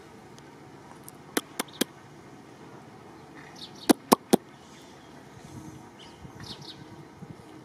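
Two quick runs of three sharp clicks, each click about a fifth of a second apart, the second run about two and a half seconds after the first and louder, over faint outdoor background with a few brief high chirps.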